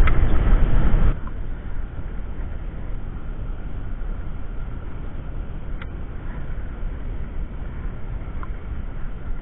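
Low rumbling wind noise on the microphone, loud for about the first second, then dropping suddenly to a quieter, steady rumble with a few faint clicks.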